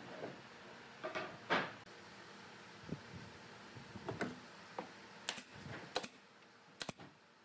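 Pneumatic nail gun firing a few sharp shots into pine boards in the second half, after some short knocks and scrapes of wood being pushed into place.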